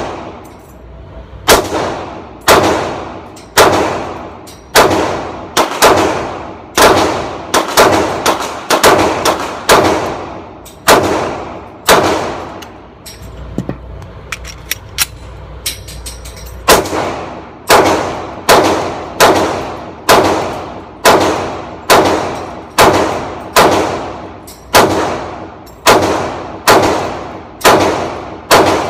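Ported Glock 22C pistol firing .40 caliber rounds at about one shot a second, each shot followed by a ringing tail. There are about two dozen shots, with a break of about four seconds near the middle that holds a few light clicks.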